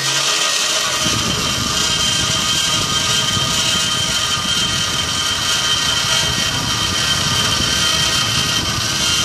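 DIY CNC router's spindle running at speed while its small bit routes into a wooden board: a steady high whine over a rough cutting noise, the low part of which comes in about a second in.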